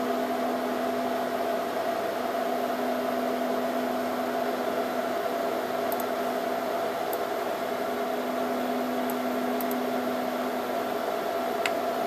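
Steady whirring hum of a running Dell PowerEdge 2950 rack server's cooling fans: a low hum and a higher steady tone over an even hiss. A few faint clicks come in the second half.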